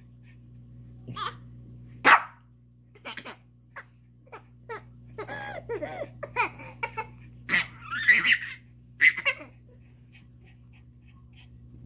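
A six-month-old baby laughing in short squeals and giggles while a small dog barks a few times at her. The sounds come in separate short bursts, loudest about two seconds in and between about seven and nine seconds.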